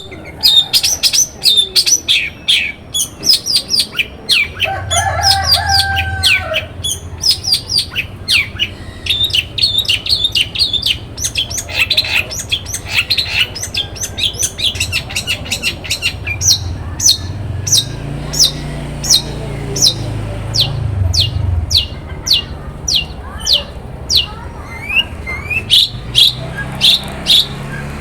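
Long-tailed shrike (cendet) singing: a fast chatter of short, sharp, high notes, thick and varied at first, settling about halfway into a steady run of single sharp calls at about two a second.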